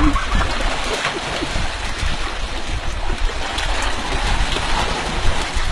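Shallow water splashing and churning as hands grab for fish in a concrete channel: a dense, steady wash of splashes.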